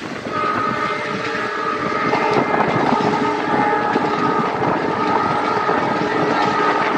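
A WDP4D diesel locomotive's multi-tone horn sounding long blasts a few coaches ahead, starting about a third of a second in, with a couple of brief breaks. The coach's wheels clatter over the rail joints underneath.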